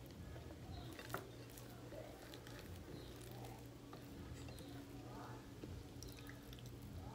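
Faint wet, squishy sounds of eating by hand: fingers working chicken, beans and okra in a bowl and soft chewing, over a steady low hum, with a sharper click about a second in.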